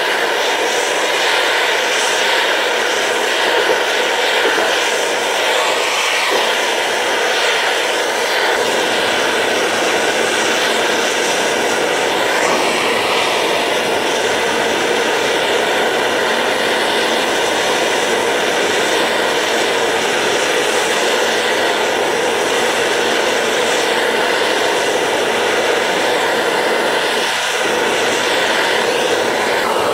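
Acetylene torch with a number 4 tip burning with a steady hiss, its flame held on a crucible to melt scrap sterling silver and casting grains.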